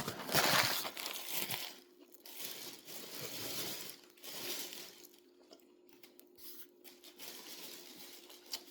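A bite into a crispy fried chicken sandwich and crunchy chewing close to the microphone, loudest in the first second and a half, then in shorter crackly spells that fade out.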